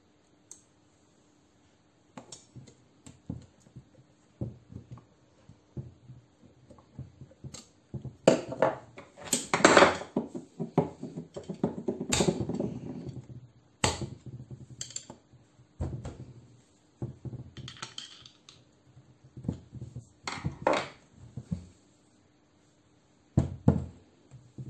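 Metal tools and air-conditioning compressor parts being handled on a workbench: irregular clinks, knocks and scrapes, busiest and loudest in the middle, with a few sharp knocks near the end.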